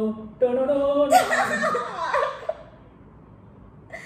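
A voice holding a sung note that breaks off and briefly resumes, then a burst of laughter that dies away about two and a half seconds in. A short click comes near the end.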